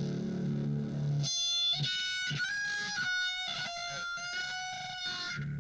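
Electric guitar played through the Make Sounds Loudly Thurston pedal, with its RAT-style distortion and its phaser both engaged. A low riff gives way to higher held lead notes about a second in, and the low riff returns near the end.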